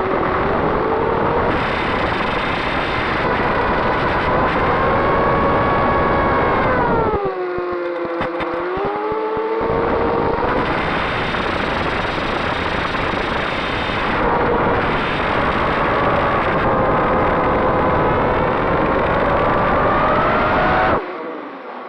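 FPV quadcopter's electric motors and propellers whining over a rush of wind noise, the pitch rising and falling with the throttle. About seven seconds in the whine sinks and the wind rush briefly drops away, then it climbs again; near the end the sound falls off sharply.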